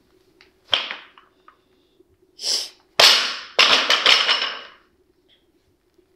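A few sudden, hissing bursts from a weightlifter crouched at a loaded 50 kg barbell, setting up for a lift. The loudest two start sharply about three seconds in and half a second later, then fade within about a second. A faint steady hum sits underneath.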